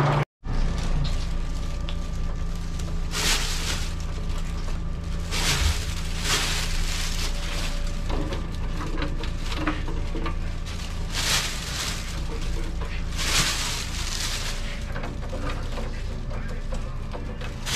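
Irregular bursts of rustling and scraping as a gloved hand spreads sliced rice cake pieces over mesh-lined steel trays, over a steady low machine hum.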